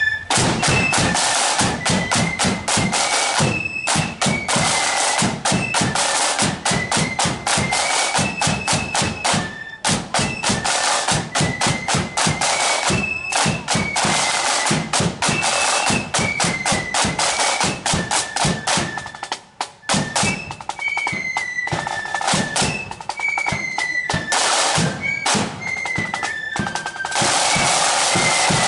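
Marching flute band playing. A rank of side drums beats rapid strokes and rolls, with short high flute notes carrying the melody over them.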